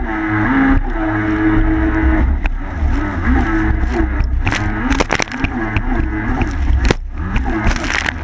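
Watercross racing snowmobile engine running hard, its pitch rising and falling repeatedly over a heavy low rumble, with sharp knocks scattered throughout.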